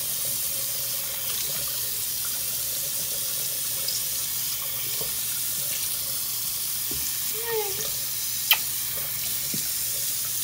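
Bathroom sink tap running steadily, the water splashing off a puppy's fur into the basin as it is rinsed. A brief squeak comes about three quarters of the way in, followed by a sharp click.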